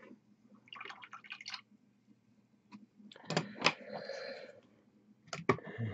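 Small wet swishing and dripping sounds of miniature-painting work, paint and brush being handled, in two short spells about a second in and again from about three seconds in, with a few light clicks.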